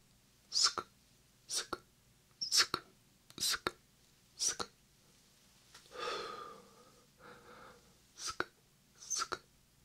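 Whispered "sk" mouth sounds made close into a 3Dio binaural microphone: short, crisp hissing "sk" bursts, each with a small click, about once a second. A longer, softer breathy whisper comes about six seconds in.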